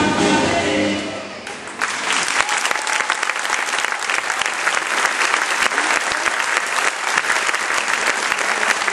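Music fades out about a second in, then an audience applauds with many hands clapping.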